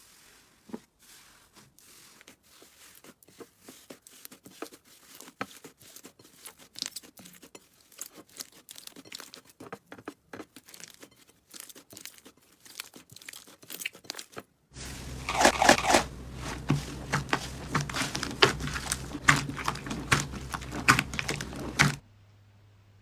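Slime being squeezed and pressed, giving off dense, fast crackling and popping. About fifteen seconds in a louder clip takes over, with sharper crackles over a low steady hum, and it cuts off abruptly near the end.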